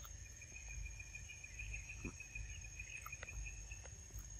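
An insect trilling on one steady high note for about three and a half seconds, stopping shortly before the end, over a constant fainter, higher insect drone.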